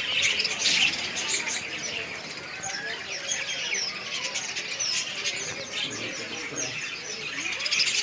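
Many caged birds chirping together: a dense, overlapping chorus of short high chirps and quick rising and falling calls.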